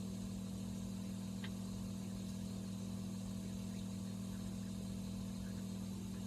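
Novation Peak synthesizer holding a steady, dark, low drone with a noisy edge.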